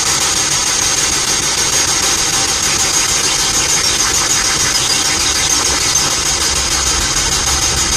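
Steady, loud hiss of noise that runs on without a break and with no voice in it.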